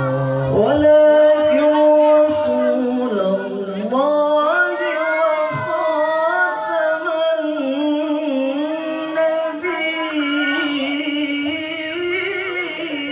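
A male Qur'an reciter (qari) holds one long, melismatic tilawah phrase with no words, sung into a microphone over a PA. His voice climbs about four seconds in, then winds down through wavering ornamental turns.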